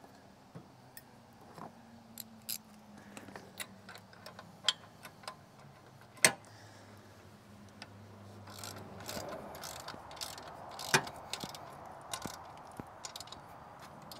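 Irregular light metal clicks and clinks of a socket wrench and steel hardware being worked on a tractor's front-end loader bracket while a mounting pin is moved. A few sharper clinks stand out, the loudest about six seconds in and about eleven seconds in.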